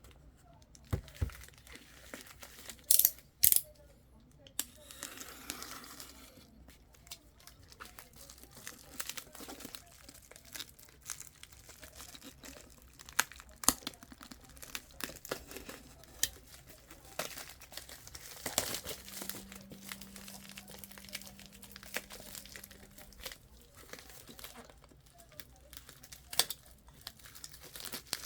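Thin plastic shipping packaging crinkling and tearing as a parcel is unwrapped, with scattered sharp clicks and knocks from handling the box.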